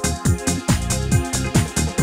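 Electronic dance music with a steady, fast kick-drum beat under sustained synth chords.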